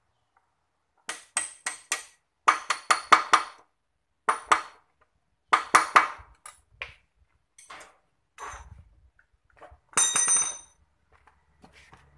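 Hammer blows knocking the loosened upper mounting bolt of a Yamaha Jupiter MX's rear monoshock out through its bracket, metal on metal with a ringing ping, in quick runs of several strikes. A few lighter taps follow, then a short ringing metallic clatter about ten seconds in.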